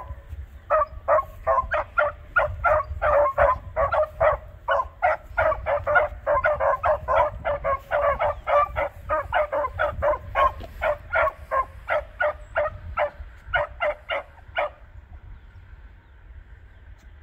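Beagles barking in a fast, steady run of short barks, about three a second, while trailing along the ground: hounds giving tongue on a scent line. The barking stops near the end.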